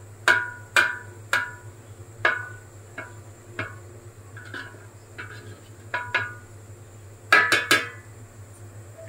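A metal utensil knocking against a metal cooking pot as parboiled rice is spooned in: a dozen or so sharp, ringing clinks at uneven intervals, with a quick run of several together near the end.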